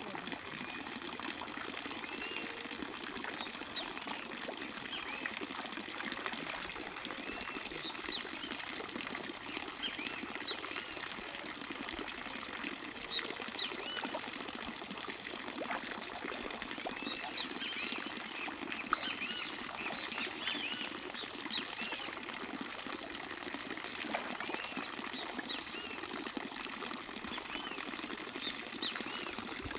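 Outdoor birdsong: many short, high chirps from small birds, scattered throughout and busiest a little past the middle, over a steady rushing noise like flowing water.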